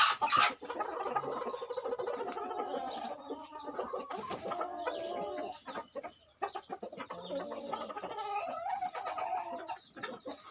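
A flock of Kadaknath chickens clucking, many birds calling over one another, with a brief lull a little past the middle.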